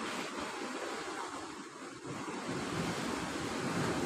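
Sea surf washing over a rocky shore, a steady rush with a short lull a little under two seconds in.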